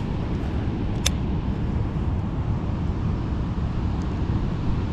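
Steady low rumble of wind on the microphone mixed with storm-drain runoff flowing into the pond, with one sharp click about a second in.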